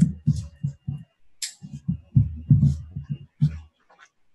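Muffled, indistinct speech, low and choppy, with a faint steady high-pitched tone under it.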